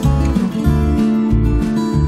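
Background music: acoustic guitar strumming over a steady bass beat.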